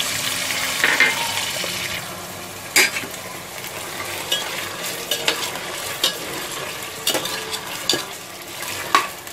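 Mutton pieces and ginger-garlic paste sizzling in hot mustard oil in a pressure cooker. The sizzle is loudest in the first two seconds and then softer, while a metal spoon stirring the meat clicks and scrapes against the pot several times.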